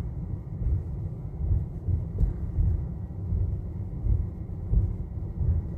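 Low, uneven rumble of a car's tyres and body driving over a concrete-slab road, heard from inside the car.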